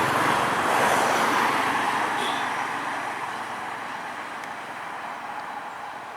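A heavy road vehicle passing by, its engine and tyre noise loudest at first and then steadily fading away as it drives off.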